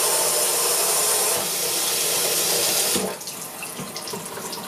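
Kitchen faucet running at full pressure through a faucet-mounted Brita filter's unfiltered spray setting, water hissing steadily into a stainless steel sink. About three seconds in the flow drops suddenly to the thin, quieter trickle of the filtered-water setting.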